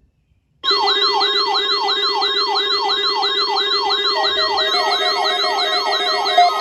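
Electronic siren sound, starting suddenly from silence, rising in fast repeating sweeps about three times a second over a steady low tone; more steady tones join about four seconds in.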